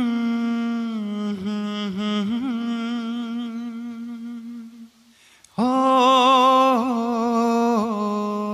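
A man singing unaccompanied, holding long wavering wordless notes. About five seconds in he breaks off briefly for breath, then comes back in louder on a new held note.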